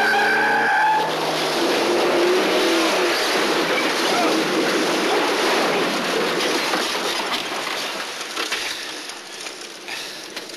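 Car-chase sound effects: cars' engines and tyres making a dense, loud rushing noise that fades away over the last three seconds or so. It opens with a steady pitched tone lasting about a second.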